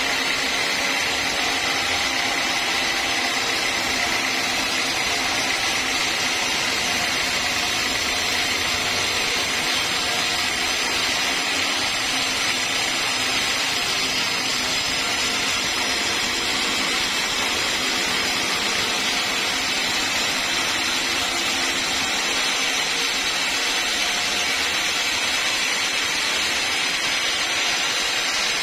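Sawmill saw running steadily through a long lengthwise cut in a log, sawing it into planks for boat-building, as an even, unbroken hiss with a faint high whine that fades in the first few seconds.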